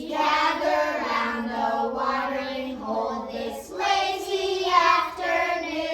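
Children singing the end of a song together, holding long notes.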